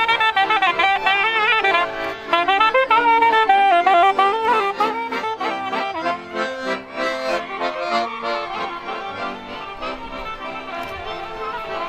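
Romanian traditional folk music played on the march by a band of accordions, violins and a clarinet: an ornamented melody over accordion chords. It gets quieter about halfway through.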